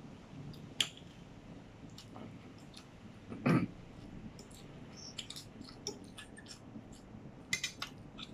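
Close-up eating sounds: a person chewing noodles and sausage, with small wet mouth clicks and smacks and light taps of a fork on a plate. One louder throat sound, like a swallow or throat clearing, about three and a half seconds in.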